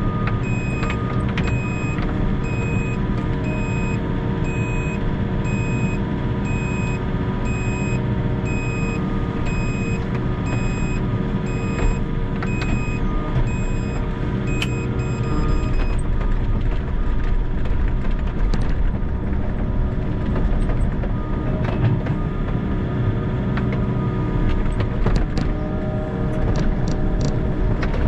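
Volvo EC60E mini excavator's diesel engine and hydraulics running steadily under load while the bucket digs frozen ground, with occasional knocks of the bucket against the hard soil. A repeated electronic warning beep, about one and a half a second, sounds over the engine and stops about halfway through.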